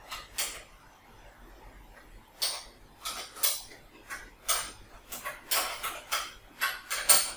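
A 10 mm spanner working two small nuts on a brush cutter's metal bracket: a run of sharp, irregular metal clicks and clinks, sparse at first and then coming one or two a second.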